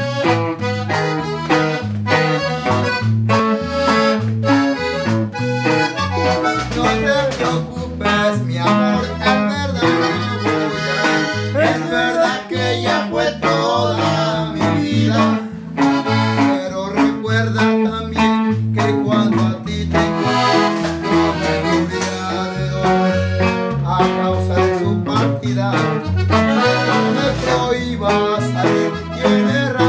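Norteño conjunto playing live: button accordion leading over bajo sexto, electric bass and snare drum, with a steady beat.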